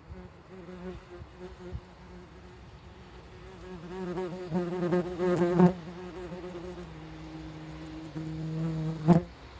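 Wasp wings buzzing in flight. The buzz wavers in pitch and grows louder about halfway through, holds steadier afterwards, and stops with a sharp tap near the end.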